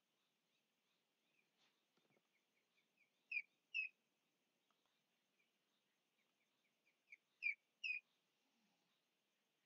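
A bird singing: twice, a run of soft short chirps quickens into two or three loud down-slurred notes.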